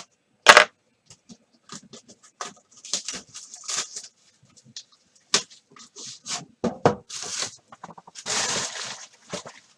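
A box of sports cards being opened by hand: irregular sharp clicks and short crinkling, tearing rustles of plastic wrap and cardboard, the longest tear about eight seconds in.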